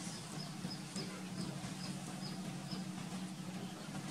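A short, high-pitched chirp repeating about four times a second, stopping about three seconds in, over a steady low hum.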